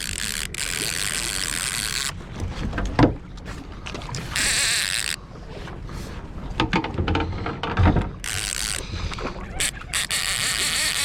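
Sounds on a small fishing boat while a hooked coho salmon is fought: bursts of rushing, splashy noise that start and stop abruptly, scattered sharp clicks and knocks, and a low steady rumble underneath.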